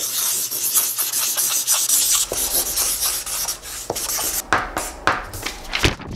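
Felt-tip pen writing fast on a sheet of paper: a dense run of quick scratchy strokes, then a few louder, separate scrapes in the last couple of seconds.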